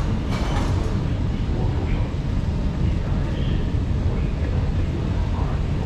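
Steady low rumble of an MRT station escalator and the station's machinery, heard while riding up the escalator, with a brief hiss about half a second in.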